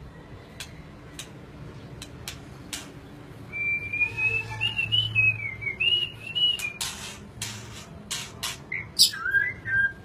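Caged white-rumped shama calling: a few sharp clicks, then a warbling whistled phrase starting about three and a half seconds in, followed by harsh rasping notes and a short whistle near the end.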